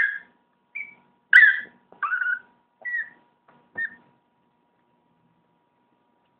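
Chihuahua giving a string of short, high-pitched whining yips, about six in the first four seconds, then falling quiet.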